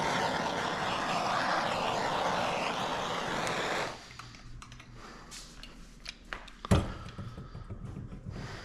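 A handheld heat gun blowing steadily over a wet resin coat, switched off about four seconds in. Then light clicks and handling noises, with one sharp knock about seven seconds in.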